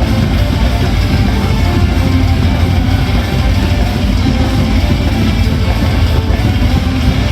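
Loud rock-style cheer music with electric guitar and a heavy low end, played over a ballpark's sound system.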